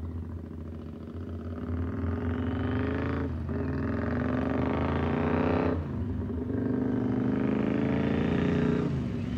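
Triumph America parallel-twin motorcycle with cocktail-shaker mufflers accelerating, the exhaust note climbing in pitch and dropping at two upshifts, about three and six seconds in, and growing louder as it comes on.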